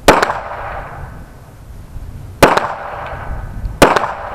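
Three shots from a Smith & Wesson M&P 9mm pistol, fired close to the microphone: the first, about two and a half seconds later a second, and a second and a half after that a third. Each is a sharp crack with a short ringing tail.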